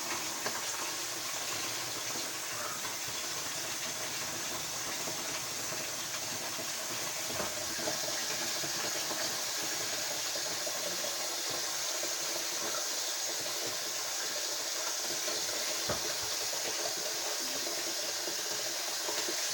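Water running steadily from a kitchen tap, filling a plastic bag.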